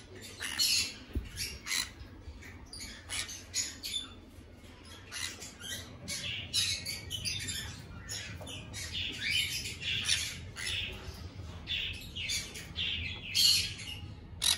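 Pineapple conures, a colour variety of green-cheeked conure, squawking and chirping in many short, shrill calls, getting busier from about halfway.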